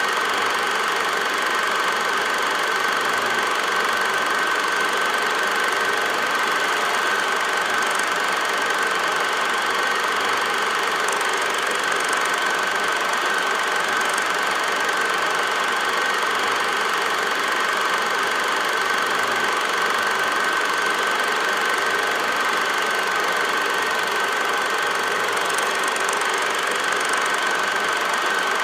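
Steady running noise of an 8mm film projector: an even hiss with a constant high whine that does not change at all.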